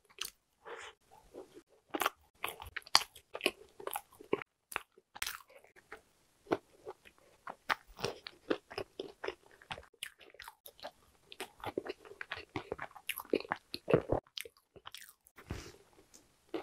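Close-miked chewing of a whole injeolmi-flavoured hodu-gwaja (Korean walnut cake), with irregular crisp crunches as the large walnut pieces inside are bitten through.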